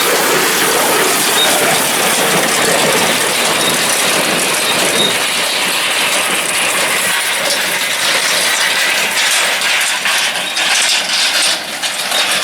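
A New Holland hay baler running behind its tractor, which has just been started up: a loud, steady mechanical clatter.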